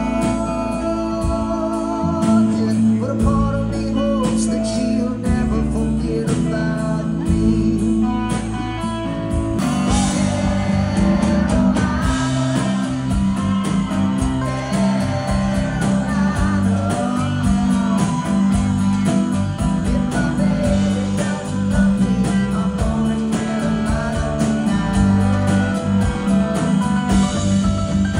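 Live rock band playing loudly: electric guitar, bass and drums, with some singing. About ten seconds in the music breaks off abruptly and a different, busier passage with a steady beat begins.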